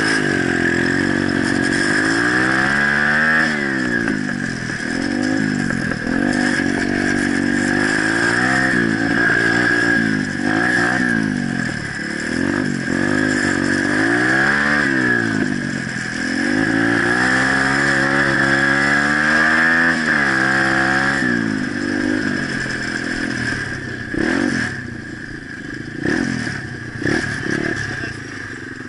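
Pit bike's small engine revving hard while riding, its pitch climbing and dropping again and again with throttle and gear changes, then easing off and running lower for the last several seconds.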